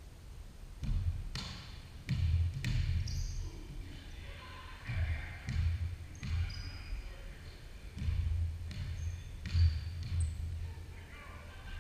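A basketball bouncing on a hardwood gym floor in an irregular pattern of dull thuds as players dribble, with sneakers squeaking in a few short high chirps now and then.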